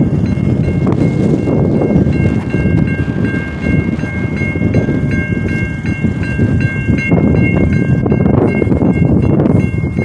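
Railroad crossing warning bells dinging in quick, even repeats, over heavy wind rumble on the microphone. The crossing is malfunctioning: its signals are active with no train coming.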